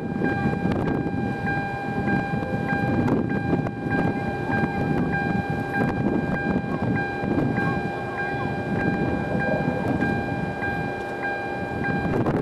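Strong gusty wind buffeting the microphone in a thunderstorm's inflow, with a thin steady high-pitched tone running underneath.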